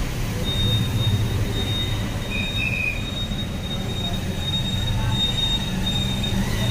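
A steady high-pitched whine that starts about half a second in and holds, with a short extra squeak about two and a half seconds in, over a constant low rumble.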